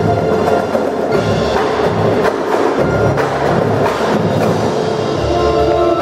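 Indoor winter drumline playing: marching drums together with the front ensemble's mallet percussion, with sharp accented hits through the middle and sustained pitched chords coming in near the end.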